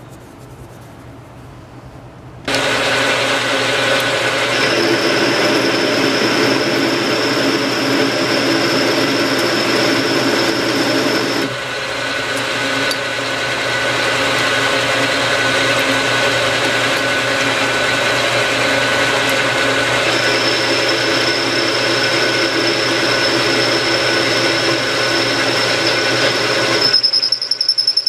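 Small metal lathe starting up about two and a half seconds in and running steadily while a tool faces the end of an aluminium bar, with a thin high whine that comes and goes. The sound changes abruptly near the end.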